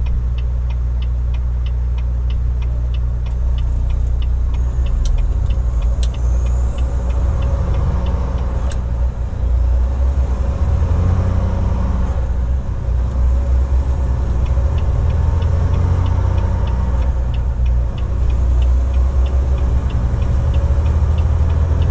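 Volvo VNL860 semi truck's diesel engine running in the cab as the truck pulls away from a stop and picks up speed. A turn signal ticks steadily, about twice a second, through the first half and again near the end.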